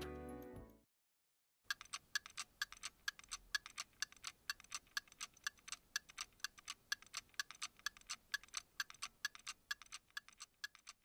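Background music dies away, then a twin-bell alarm clock ticks steadily, about four ticks a second, growing fainter near the end.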